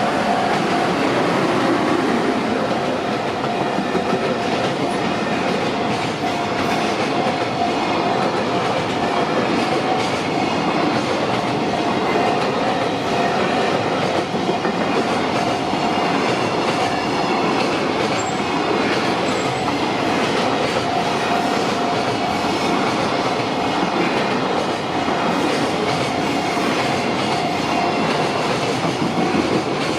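JR Tokaido Main Line train passing over a level crossing, its wheels clattering steadily over the rail joints for the whole time. A level-crossing warning bell rings over it as a steady high tone, loudest at first and fading somewhat later.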